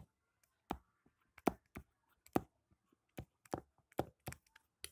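A stylus tapping and clicking against a tablet's glass screen during handwriting: a dozen or so short, sharp clicks at an irregular pace.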